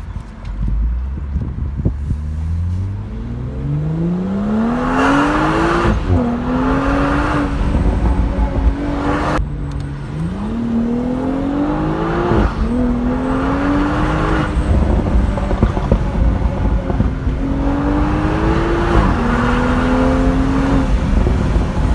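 Stage 2-tuned BMW 340i's turbocharged inline-six accelerating hard, its note rising steadily in pitch and dropping suddenly at each upshift, several times over, over steady road noise.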